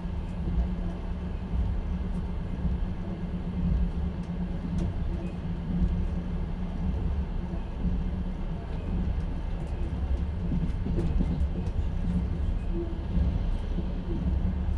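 Moving passenger train heard from inside an open-plan sleeper carriage: a steady low rumble of the running wheels and carriage, with a few faint light knocks and rattles.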